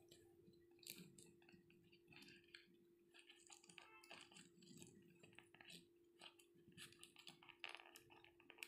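Near silence: faint scattered clicks and rustles of fingers working a rubber balloon over the mouth of a glass bottle, a few slightly louder near the end, over a faint steady hum.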